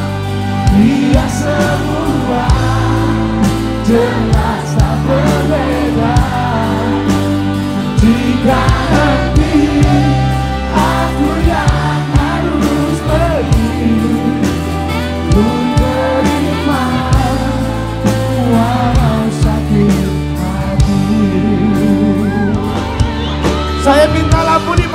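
Live pop band music over a PA: amplified drums, bass and backing instruments with singing, the audience singing along.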